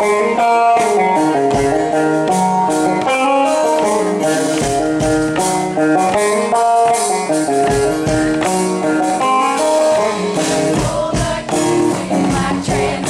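A live band playing, guitar to the fore, over regular percussive hits.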